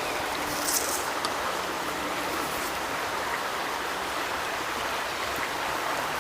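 Creek water running, a steady even rush, with a brief high rustle just under a second in.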